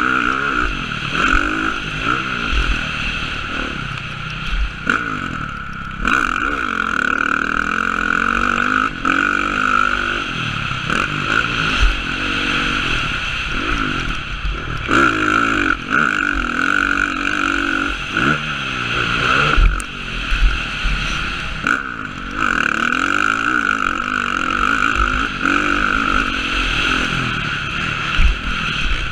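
Motocross dirt bike engine revving hard and falling back again and again as the rider shifts and throttles through corners and jumps, heard from a helmet-mounted camera, with occasional low thuds from bumps and landings.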